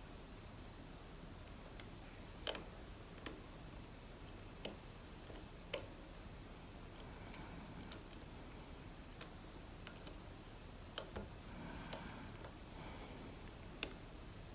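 Lock picks working in an Assa Abloy Arrow lock, with about a dozen sharp, irregular metallic clicks as the pins are set and the tension shifts.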